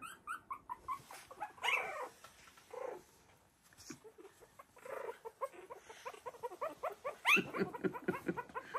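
Three-week-old Havanese puppies whimpering and squeaking in short, high cries. A quick run of louder squeals comes near the end.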